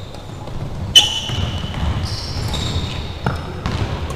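Badminton rally in a large echoing gymnasium: a sharp racket strike on the shuttlecock about a second in, the loudest sound, and a lighter hit a little after three seconds. Between the hits, shoes squeak and footsteps thud on the hardwood floor.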